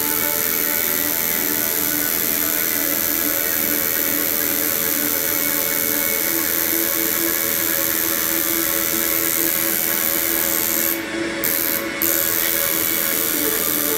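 Tattoo machine buzzing steadily as it works against the skin, with two brief drops a little before the end.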